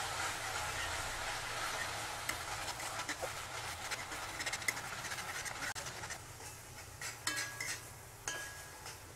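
Flat metal spatula stirring and scraping soaked dates and banana pieces frying in ghee in a kadai, with a steady sizzle. About six seconds in the sizzle fades and separate scraping strokes against the pan stand out, a couple with a short squeak.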